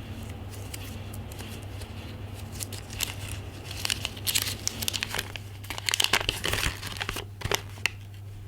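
Paper instruction leaflet from a padlock package being unfolded and handled: a few seconds of crinkling and rustling that start about two and a half seconds in and stop shortly before the end.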